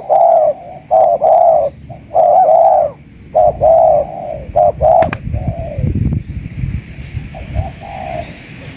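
Spotted dove cooing in a rapid run of repeated phrases, loud and close. About five seconds in there is a sharp click, followed by low rustling thumps and a few fainter coos.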